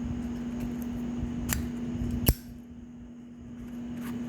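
A few sharp clicks and clacks from lighters and their cases being handled, the loudest and sharpest a little past halfway, over a steady low hum.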